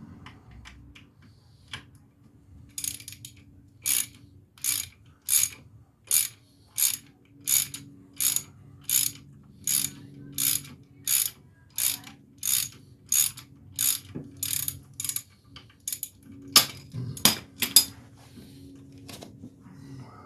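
Hand ratchet wrench worked back and forth on bolts in a steady rhythm of about one and a half strokes a second, each stroke a burst of pawl clicking; a few louder, sharper strokes come near the end.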